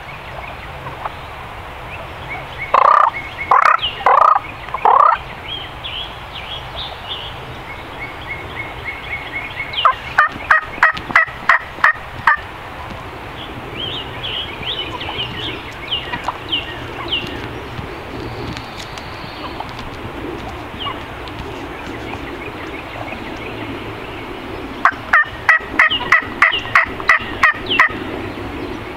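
Wild turkeys calling: loud gobbles about three seconds in, then two long runs of rapid, evenly spaced yelping notes, one near the middle and one near the end, with softer high chirps in between.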